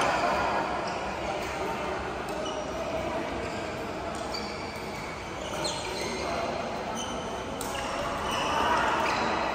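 Badminton play: rackets striking the shuttlecock with sharp clicks, and short high squeaks of court shoes on the mat, some sliding in pitch, over the murmur of players' voices around the hall.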